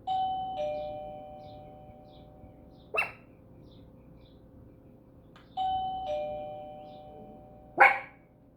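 Two-tone ding-dong doorbell chime rung twice, about five and a half seconds apart, each note fading slowly. A short, sharp sound comes about three seconds in, and a louder one near the end.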